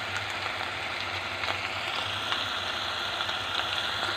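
Beef tapa strips sizzling as they fry in oil in a stainless steel pan: a steady hiss with small crackles, and a low steady hum underneath.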